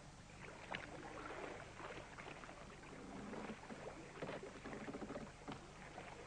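Faint water lapping against a boat's hull, with small irregular splashes and a low steady hum underneath.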